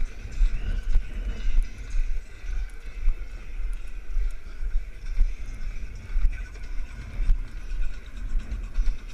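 Hoofbeats of a loping horse in arena dirt, heard from a camera carried on horseback, a rhythmic low thumping about twice a second.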